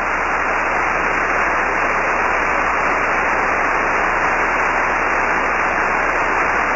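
Steady radio static hiss from an amateur radio receiver tuned to an open frequency, with no station answering the call.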